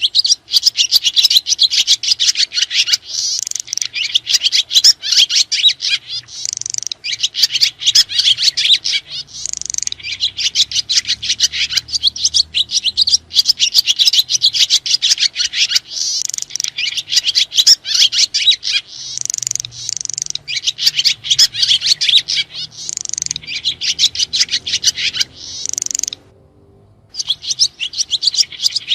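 Swiftlets (sriti) twittering: a dense, continuous stream of rapid high-pitched chirps, broken by about a second of silence near the end.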